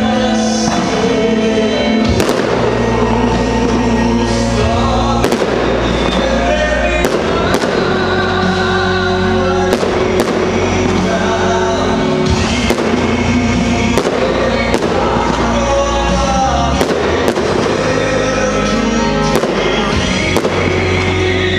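Fireworks bursting over loud music, with a sharp bang roughly once a second.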